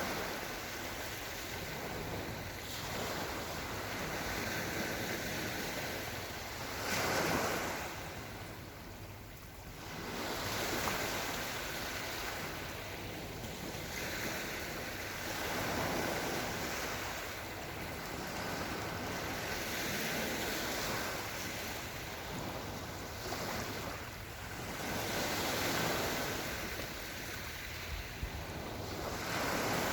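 Small Black Sea waves washing gently onto the shore, the surf swelling and ebbing in slow surges every four to five seconds.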